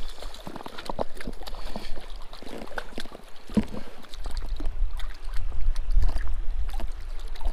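A hooked trout splashing and thrashing at the surface of a shallow stream close to the bank, with scattered clicks and splashes. From about four seconds in a low rumble takes over as the angler steps down into the water in waders.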